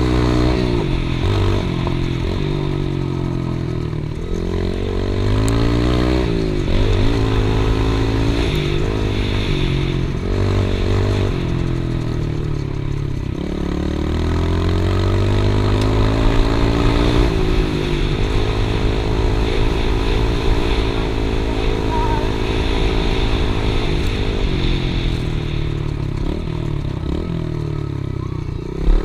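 Yamaha TT-R110E dirt bike's small single-cylinder four-stroke engine running as the bike is ridden, its pitch climbing and dropping again and again as the revs rise and fall.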